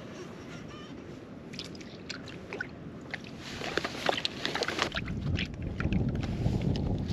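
Scattered small clicks and crackles, then from about five seconds in wind buffeting the microphone with a low, rough rumble that grows louder.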